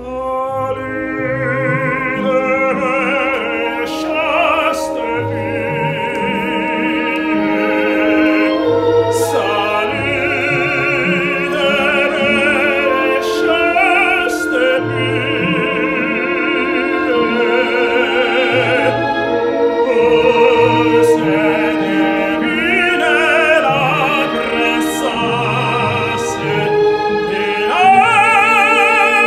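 Operatic tenor singing an aria full voice with wide vibrato over instrumental accompaniment, rising to a loud held high note near the end.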